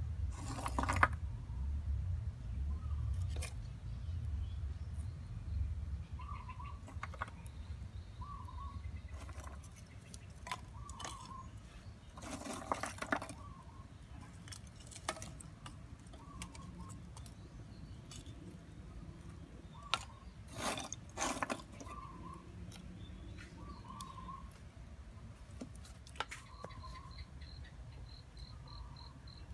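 Lumps of charcoal clinking and knocking as they are dropped one by one into a clay charcoal stove, with a few louder clatters. A bird chirps at intervals in the background.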